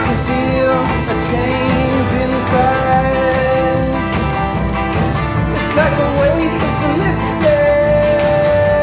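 Acoustic guitar strummed steadily while a man sings long, held notes over it.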